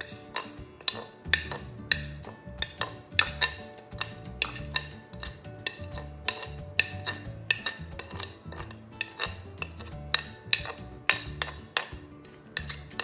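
Metal spoon scraping and tapping ground spices off a ceramic plate into a steel bowl: a quick, irregular run of sharp clinks, about two or three a second. Background music plays under it.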